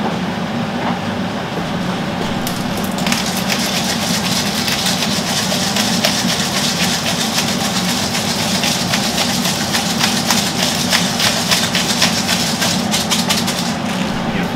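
A frying pan of pasta and pesto heating on a gas hob, crackling and sizzling from about three seconds in, over a steady low hum.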